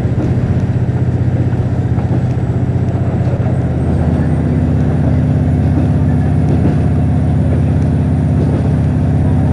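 KiHa 48 diesel railcar's engine running under way, heard from inside the car: a steady, pulsing low drone that steps up in pitch and loudness about four seconds in as the engine works harder.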